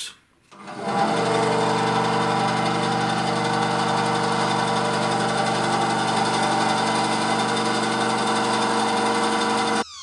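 Benchtop bandsaw starting up about a second in, then running steadily with an even motor hum. The sound cuts off suddenly near the end.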